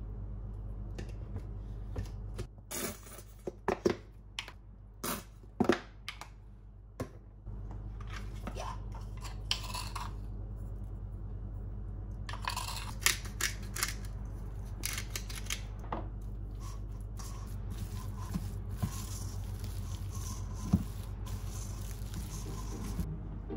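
A spatula stirs and mashes potato salad with mayonnaise in a stainless steel mixing bowl: irregular clicks and short scrapes against the metal, over a steady low hum.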